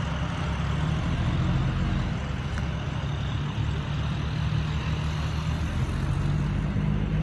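Steady low rumble of engine and road noise heard from inside a moving vehicle.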